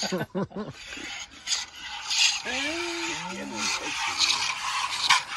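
Goat being hand-milked into a foam cup: squirts of milk spraying into the cup, one every 0.7 seconds or so, in step with each squeeze of the teat.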